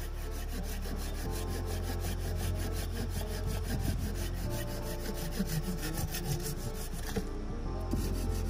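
Small hand saw cutting through a barked log in quick back-and-forth strokes, a repeated rasping of the blade in the wood.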